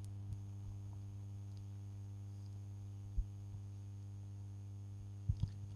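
Steady electrical hum from the PA system, with brief low thumps from the microphone being handled: one about three seconds in and two close together near the end.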